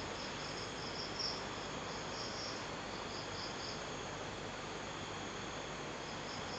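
Night insects, crickets by the sound of it, chirping in short trains of high pulses over a steady faint hiss; the chirping stops about four seconds in.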